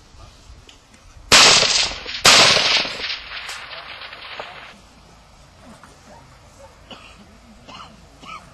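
Two rifle shots about a second apart, a little over a second in, each followed by a long rolling echo that dies away over the next two seconds or so.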